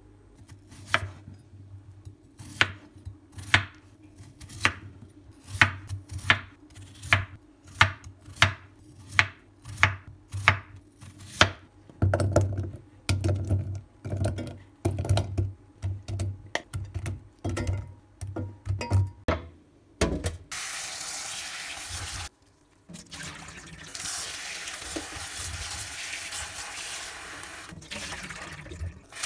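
Peeled potatoes being cut into chunks that drop into a stainless steel pot: a string of sharp clicks and knocks about every half second, heavier and more frequent after about twelve seconds. About twenty seconds in, tap water starts running hard into the pot in the sink, stops briefly a couple of seconds later and runs on.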